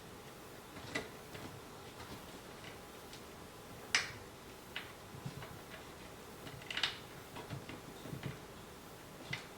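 Scattered light clicks and taps of a hand tool on screws and table parts, the sharpest about four seconds in and a quick cluster near seven seconds, as small wood screws are driven in by hand with the Phillips end of an Allen key.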